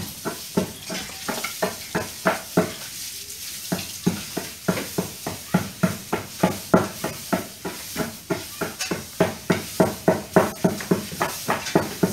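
Roast duck being chopped with a heavy chopping knife: steady, rhythmic chops about three a second, with a short pause about three seconds in.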